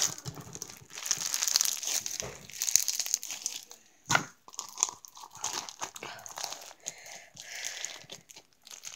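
Crunchy slushy slime being squeezed and worked by hand, crackling and crunching, with a sharp knock about four seconds in.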